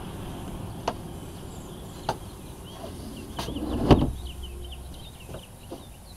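Doors of a plastic Rubbermaid storage cabinet being pulled shut from inside: a few light clicks, then a thump about four seconds in as one door closes.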